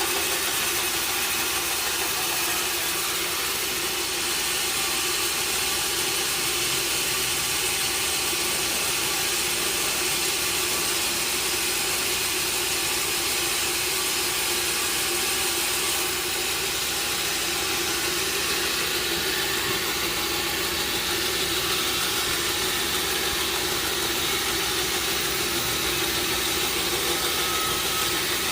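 Sawmill machinery running steadily, a constant mechanical hum and hiss that neither rises nor falls.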